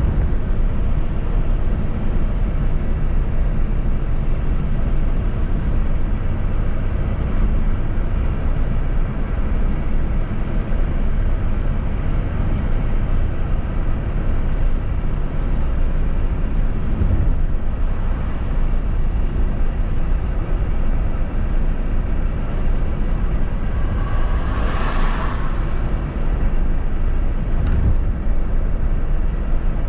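Vehicle travelling along a highway: steady low rumble of engine, tyre and wind noise. A brief louder rush comes about three-quarters of the way through.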